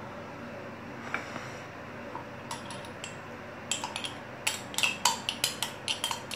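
A spoon clinking and scraping against a small glass jar while pesto is scooped out of it: a few scattered taps at first, then a run of quick clinks, several a second, from a little before halfway on.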